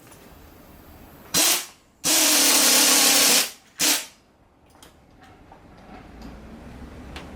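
Three bursts of pressurised gas spraying with a loud hiss: a short one, a longer one of about a second and a half, then another short one, as in blowing out or spraying carburettor parts.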